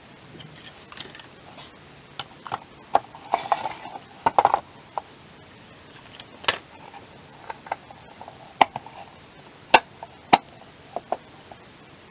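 Irregular sharp clicks and knocks, with a brief rustle about three and a half seconds in, as a gas igniter circuit board is handled and set into its black plastic housing.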